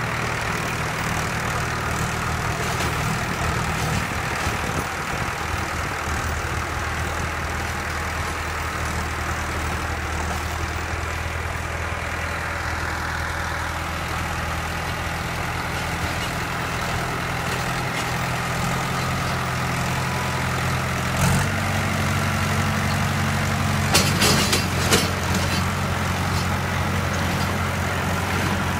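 Swaraj 978 FE tractor's diesel engine running steadily while it pulls a rotavator through soil. The engine note steps up slightly about two-thirds of the way through, and a few sharp knocks follow a few seconds later.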